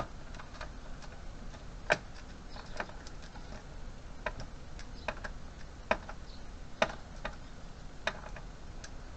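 Irregular sharp metallic clicks and taps, about one a second, from a screwdriver and small screws against a metal case as a hard drive is screwed into a CCTV recorder.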